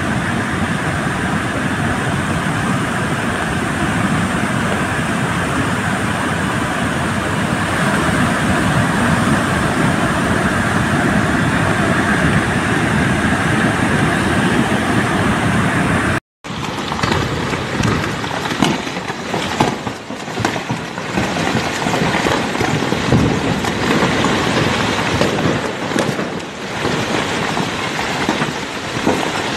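The flooded Beas river rushing in spate, a steady loud churn of muddy water. After a sudden cut about halfway through, an uneven rumble with scattered knocks, from rocks and dust pouring down a cliff in a landslide.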